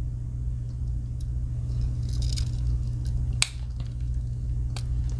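Small metal clicks of a Victorinox Huntsman pocket knife's tools being handled and snapped, with a sharp click about three and a half seconds in and another near the end, over a steady low hum.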